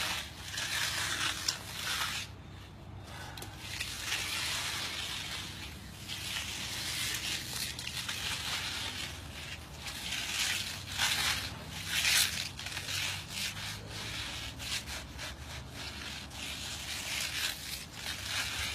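A 12-inch diamond-design concrete hand float scrubbed back and forth over a concrete surface in repeated gritty rubbing strokes, with a brief pause about two and a half seconds in. The float is grinding the surface down and filling in its holes.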